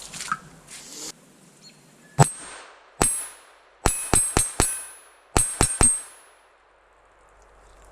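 Nine shots from a Smith & Wesson M&P 22 Compact .22LR pistol, each with a short high metallic ring as the bullet strikes a steel target: two single shots, then a quick string of four, then three more.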